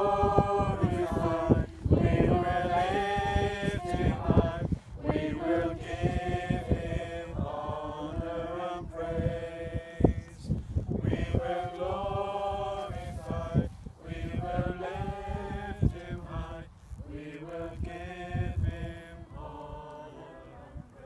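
A small mixed group of men and women singing a hymn together, unaccompanied, in phrases with short breaks, quieter near the end. Wind buffets the microphone.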